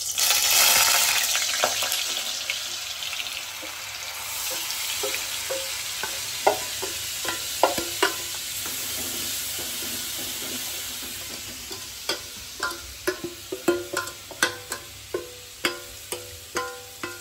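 Semi-liquid gram flour, sugar, milk and ghee mixture hitting hot oil in a kadai, starting as a loud sizzle that slowly settles to a steady one. A spatula knocks against the pan while stirring, more often toward the end.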